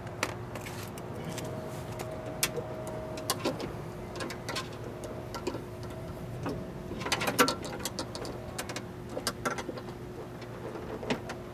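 Scattered light clicks and knocks of tools and metal parts being handled inside a car door while a window regulator is positioned and screwed in, with a cluster of knocks about seven seconds in. A steady faint hum runs underneath.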